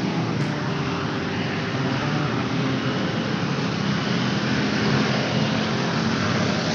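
Steady road traffic noise, with the constant engine hum of passing cars and motorcycles.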